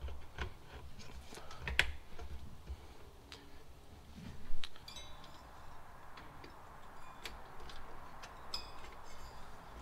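Scattered light clicks and rattles of computer power-supply cables and their plastic connectors being handled and pushed into a motherboard, with one louder knock about four and a half seconds in.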